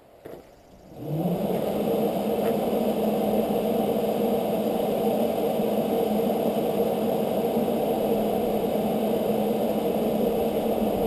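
Jeep engine starting about a second in, its pitch quickly rising and then settling into a steady idle.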